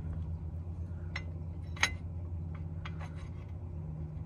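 A few light metallic clinks and ticks as the brake dust shield and caliper hardware are handled behind a new front rotor, the loudest a little under two seconds in, over a steady low hum.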